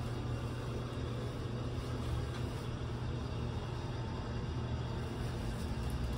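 Steady low hum and rumble inside an elevator car, with one constant low tone running under it.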